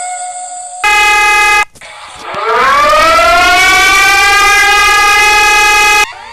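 Emergency alert alarm audio: a short, harsh steady tone, then after a brief break a siren winds up, rising in pitch for about a second and holding a loud, steady wail until it cuts off suddenly near the end.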